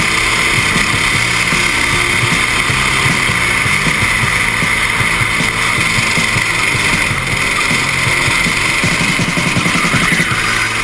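Racing kart's small engine running hard at speed, heard from onboard the kart, with wind noise on the microphone.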